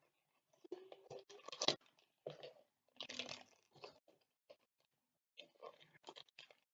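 Fingers picking and scratching at a small cardboard blind box while looking for a way to open it: faint, irregular scrapes, rustles and taps.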